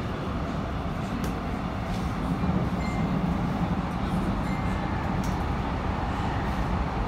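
Metro train running through a tunnel, heard from inside the passenger car: a steady low rumble of wheels and track with a few faint clicks. It grows a little louder about two seconds in.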